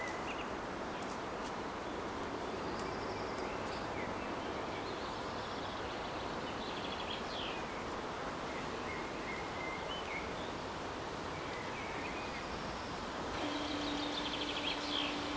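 Small birds chirping over steady outdoor background noise. Near the end a steady electric hum starts as the level-crossing barrier begins to lower: its drive motor running.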